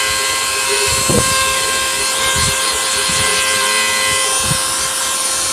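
CNC router spindle running steadily, its small engraving bit milling copper-clad circuit board: a steady whine with several fixed pitches over a hiss of cutting. A few dull low thumps come through it, the strongest about a second in.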